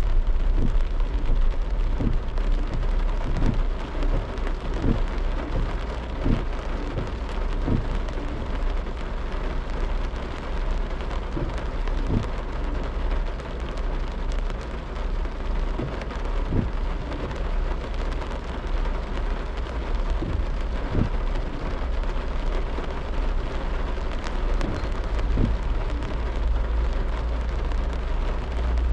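Rain and road noise from a car driving through rain: a steady even hiss of rain and wet tyres over a constant low rumble, with scattered dull taps of drops at irregular intervals.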